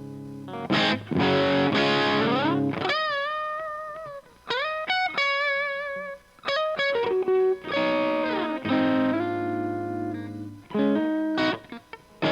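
Electric guitar played through an Omega Series Micro amplifier, heard through a Greenback cabinet impulse with added reverb. It plays ringing chords, then single-note lead phrases with wide vibrato about three seconds in, broken by several short stops.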